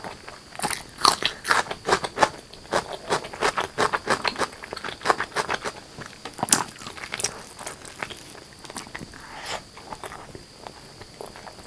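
Close-miked mukbang eating of spicy chicken curry and white rice: a person biting and chewing. There is a dense run of sharp mouth clicks for the first several seconds, which grows sparser after about seven seconds.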